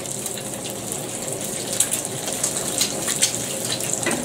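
Slice of haggis frying in hot oil in a frying pan: a steady sizzle with scattered small crackles and pops.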